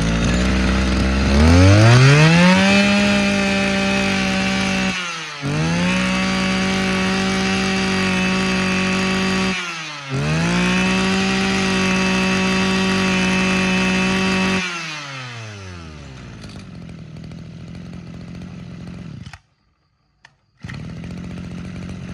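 Mitsubishi TL23 23cc two-stroke brush cutter engine revving from idle up to full throttle and holding there, with two brief drops in revs about five and ten seconds in. It then falls back to a steady idle and cuts out for about a second near the end.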